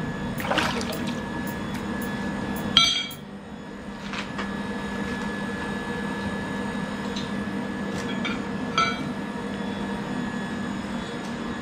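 Metal tools striking metal with a sharp ringing clink about three seconds in and a smaller one near nine seconds, with a few fainter clicks, over a steady low machine hum.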